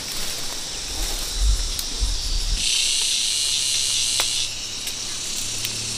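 Insects buzzing steadily at a high pitch, with a louder buzz starting about two and a half seconds in and stopping about two seconds later. A low rumble comes early, and a few sharp clicks are heard.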